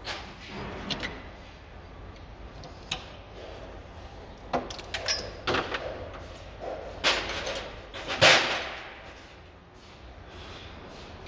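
A string of sharp knocks and clicks, with a louder bang about eight seconds in, typical of metal tools and parts being handled on a car during workshop repair.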